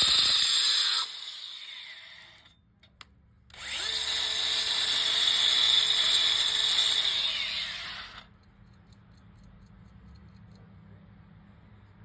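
Angle grinder with a diamond concrete blade cutting long steel pet-door mounting screws shorter: a loud hissing cut that stops about a second in and winds down, then a second run from about three and a half seconds to eight seconds, its motor pitch rising as it starts and falling as it spins down.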